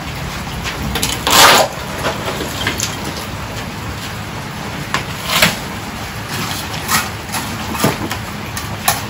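Broken concrete rubble being moved with a metal shovel: a loud scrape and clatter of chunks about a second and a half in, then further scrapes and knocks of concrete on concrete around five, seven and eight seconds, over a steady hiss.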